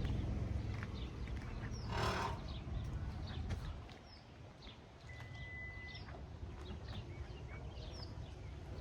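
Birds chirping, many short falling calls, over a low rumble that fades away about four seconds in. A brief louder noise comes about two seconds in, and a steady whistle-like tone lasts about a second near the middle.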